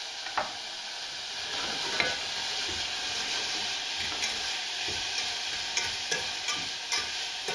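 Diced carrots, onion and ginger sizzling in olive oil in a stainless steel saucepan as they are stirred with a metal utensil, with several sharp clicks of the utensil against the pot. The sizzle is steady and grows a little louder about a second and a half in.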